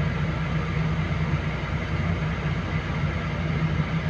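Heavy diesel engine running steadily, a low even drone with no breaks or knocks.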